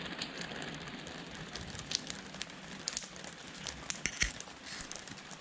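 Rain falling on a wet wooden plank deck: a steady hiss with irregular sharp ticks of drops landing close by.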